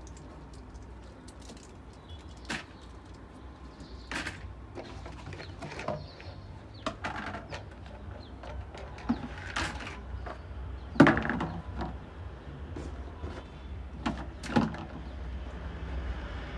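Scattered knocks and clicks of objects being handled and set down, the loudest knock about eleven seconds in, over a steady low hum.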